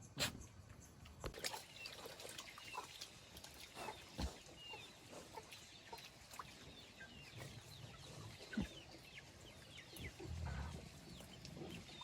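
Farmyard animal calls: many short, high chirps and clucks, with a few sharp knocks scattered through.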